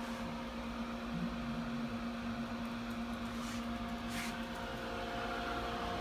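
Commercial display mini fridge's refrigeration unit running: a steady hum with several steady tones, plus a couple of faint ticks about midway.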